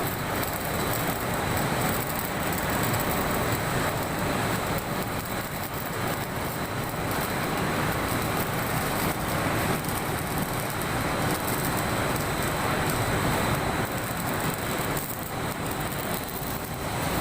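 Electric welding arc crackling steadily, easing briefly near the end.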